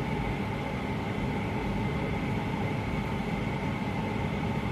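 A steady mechanical hum and hiss with a faint constant high whine, unchanging throughout.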